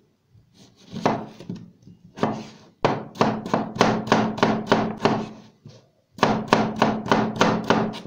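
Chef's knife cutting frozen oranges on a plastic cutting board: two slow slicing cuts through the hard frozen fruit, then quick chopping with the blade knocking the board about four times a second, in two runs with a short break between them.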